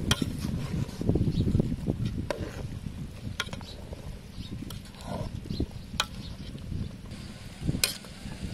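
A metal ladle stirring soup in a large aluminium pot, with a few sharp clinks as it knocks against the pot, over a low rumbling background.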